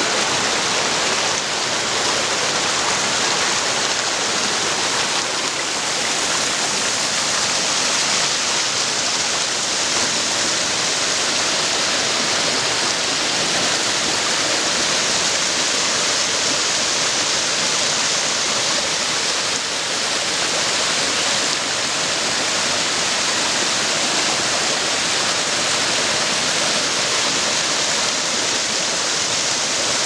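Small cascade on a rocky mountain stream: a steady, even rush of water pouring over boulders, bright and hissy, with no breaks.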